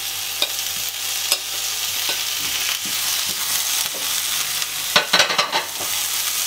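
Chickpeas, chicken and zucchini sizzling in a frying pan, with a steady hiss and scattered clicks and scrapes of a wooden spatula against the pan. There is a brief flurry of scraping about five seconds in.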